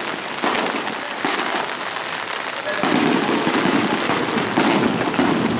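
Heavy rain falling with a steady hiss on the wet road, growing louder and fuller about three seconds in.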